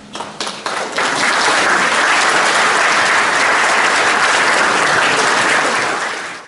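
Audience applauding at the end of a choral piece: a few scattered claps that build within about a second into full, dense applause, easing slightly near the end.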